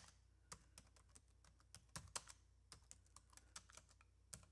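Typing on a computer keyboard: a run of faint, irregularly spaced key clicks over a steady low hum.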